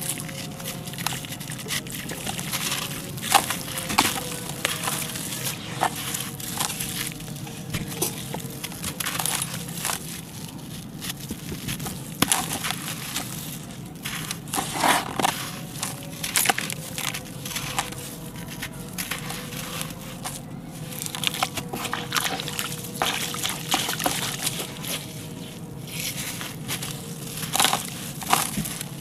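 Hands crumbling and crushing lumps of concrete in a water-filled basin: irregular gritty crunching and crackling, with wet squelching and sloshing as the soaked paste is squeezed. A few louder crunches stand out, about three seconds in, in the middle and near the end.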